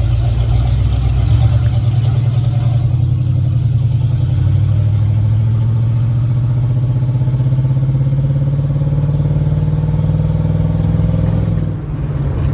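AMC Matador's V8 engine pulling under acceleration. Its pitch rises steadily over several seconds, then dips briefly near the end.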